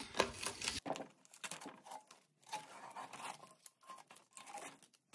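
Blue painter's masking tape being peeled off the edges of a metal tool box and bunched up, heard as faint, irregular tearing and crinkling.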